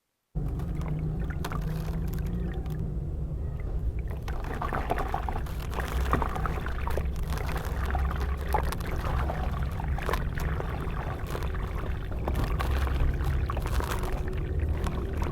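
Cement and sand chunks crumbling and crushing in water, with many small irregular crackles and crunches that start abruptly about half a second in. Under them runs a steady low hum, which the uploader puts down to a microphone problem.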